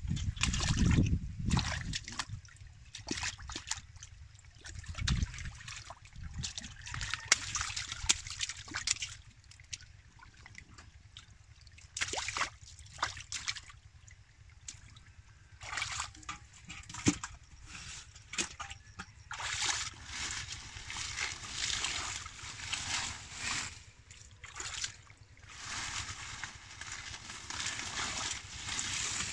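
Hands sloshing and splashing in shallow muddy water while groping for fish, in irregular bursts throughout. The loudest splashing comes in the first two seconds, as a catfish is lifted from the water.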